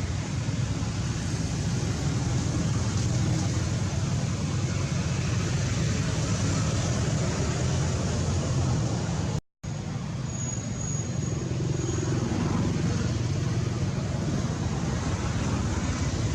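Steady outdoor background noise with a strong low rumble, cutting out to silence for a moment about nine and a half seconds in.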